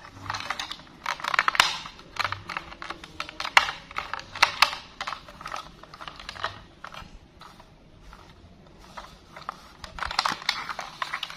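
Plastic toy police van handled in gloved hands: irregular clicks, taps and rattles of its plastic body and parts, with a quieter stretch about two-thirds of the way through.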